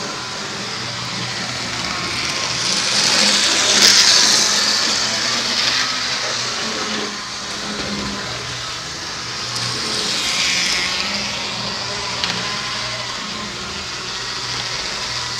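HO-scale model train running on the layout: a steady whir of the locomotive motor and wheels on the rails, swelling louder twice as the train passes close by.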